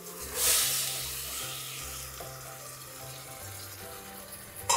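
Crushed tomatoes poured into a pot of onion, red pepper and garlic frying in hot olive oil: a loud wet sizzle that swells about half a second in and dies down over a second or two. Background music with low notes throughout, and a knock near the end.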